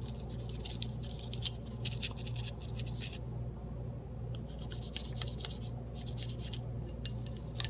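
Toothbrush bristles scrubbing the inside of a Glock pistol slide wet with gun cleaner, in quick scratchy strokes, working loose powder residue and brass shavings. The scrubbing pauses for about a second around three seconds in, then resumes.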